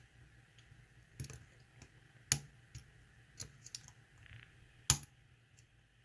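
Steel lock pick and tension wrench clicking inside a pin tumbler lock during single-pin picking, as pins are nudged and set against security pins: irregular light clicks, with two sharper ones about two and a half and five seconds in.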